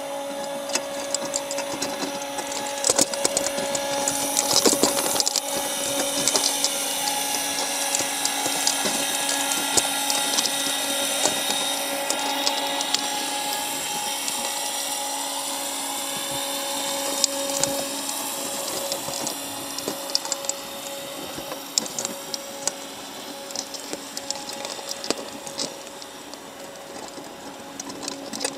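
Steady mechanical whine of a motor heard underwater, several held tones with the higher ones slowly bending in pitch, with scattered sharp clicks and taps of crabs' shells and legs against the wire crab trap.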